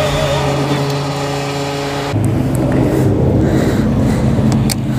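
A song with a male singer plays for about two seconds, then cuts off abruptly to a motorcycle engine idling, with two or three sharp clicks near the end.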